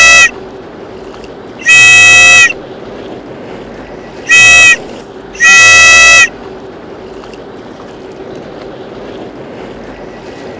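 A whistle blown in four loud blasts of steady pitch, the last two about a second apart, the short third one briefly. A steady hiss of background noise runs underneath.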